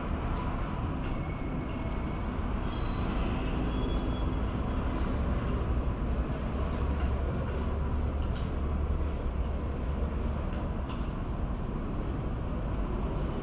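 Jet airliner on approach, heard from a distance as a steady low rumble with a faint high engine whine over it.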